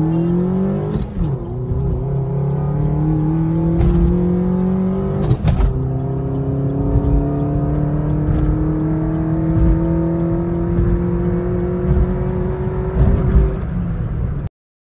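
Suzuki Baleno's 1.2-litre four-cylinder petrol engine, heard from inside the cabin under full-throttle acceleration: its note climbs steadily in pitch and drops at each upshift, about 1 second in and again about 5 seconds in, with a click at the gear change, then pulls up through the next gear until it cuts off suddenly near the end.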